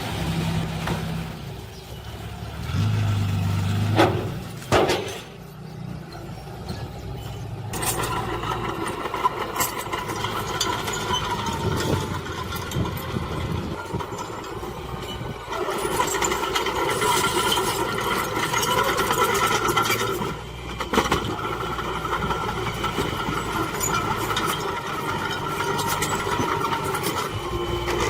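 Diesel engines of heavy earthmoving machines, a dump truck and a bulldozer, running and working. There are a couple of sharp knocks about four seconds in, and the engine sound changes abruptly several times.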